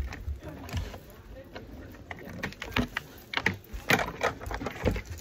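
Irregular light clicks and knocks of plastic wrestling action figures being handled and set up, with clothing rustling against the phone close by.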